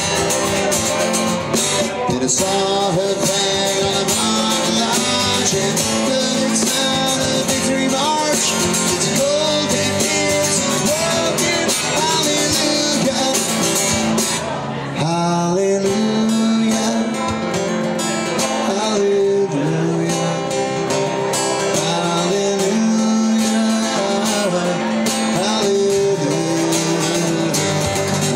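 A band playing a song, guitars to the fore. The sound dips briefly about halfway through, then carries on.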